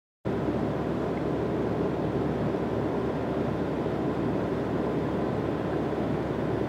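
Sailboat motoring with its sails stowed: its engine runs steadily, with wind rushing over the microphone. The sound starts abruptly just after the start.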